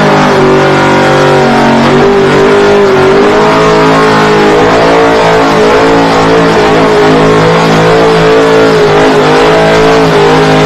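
LSX V8 engine in a Toyota AE86 held at high revs through a burnout, its rear tyres spinning on the asphalt. The note is loud and steady, dipping slightly about two seconds in and then holding, over a hiss from the spinning tyres.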